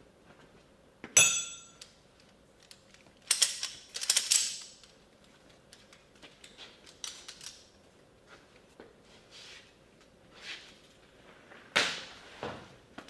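Workshop handling sounds: a sharp metallic clink about a second in that rings briefly, then scraping and small knocks of tools or parts being moved, with another knock near the end.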